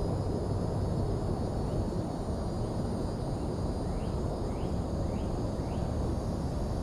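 Outdoor ambience at a lakeside dock: a steady low rumbling noise throughout, with a faint high insect drone and a bird giving four quick rising chirps a little past halfway.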